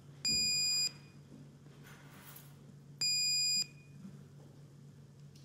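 Two short electronic beeps from a council chamber's electronic voting system, each about half a second long and about three seconds apart, signalling that a vote is open. A low steady hum runs underneath.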